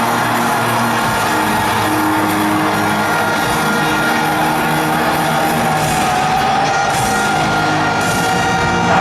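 Loud rock music playing.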